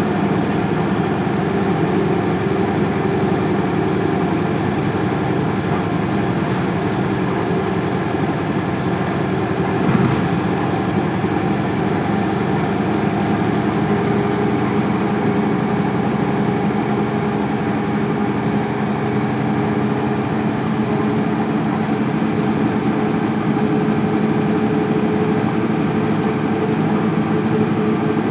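1998 Isuzu Cubic city bus's 8PE1 V8 diesel engine idling at a steady pitch, with one brief knock about ten seconds in.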